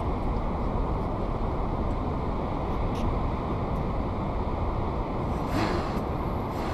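Steady wind noise buffeting the microphone, a low rumbling rush.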